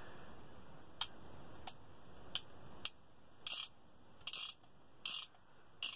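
Single-action revolvers being cocked and worked for comparison, a series of sharp metal clicks from the hammers and actions. Four short single clicks come in the first half, then four longer clicking bursts about three-quarters of a second apart.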